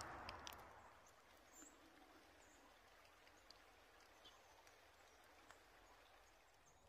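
Near silence of woodland: a soft rustling fades out within the first second, leaving faint ambience with a few short, high bird chirps and small ticks.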